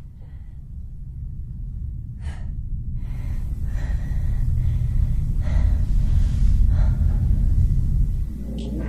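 A woman's heavy, audible breaths and gasps, a few separate strokes, over a low rumbling drone that swells steadily louder. Near the end a gong-like ringing tone comes in.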